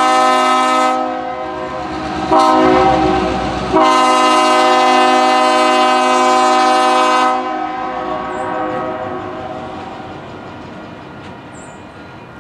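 Diesel locomotive's air horn sounding a chord: a long blast ends about a second in, a short blast follows, then a long blast of about three and a half seconds. The pattern fits the closing long–short–long of a grade-crossing signal. Once the horn stops, the engine rumble and wheel noise fade as the locomotive moves away.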